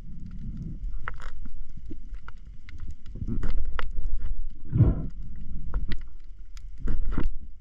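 Spearfisher breathing hard through a snorkel, heard through a waterproof camera housing: a low steady rumble with scattered clicks and knocks, and one heavy breath about five seconds in.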